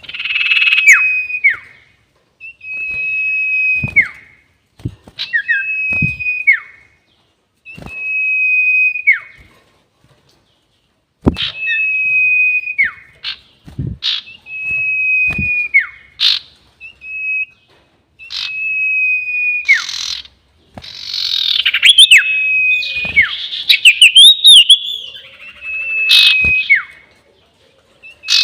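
A sirtu bird singing its long whistle: a steady high note held about a second that ends in a quick downward slide, repeated every couple of seconds. The calls get busier and noisier from about twenty seconds in, with extra chirps. This is a call used as a lure for trapping.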